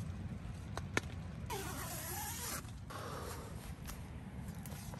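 Wind buffeting the microphone as a steady low rumble, with two sharp clicks about a second in and two short creaking rasps in the middle.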